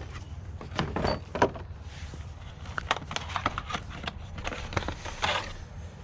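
Scattered light clicks and knocks from engine parts being handled during assembly, over a steady low hum.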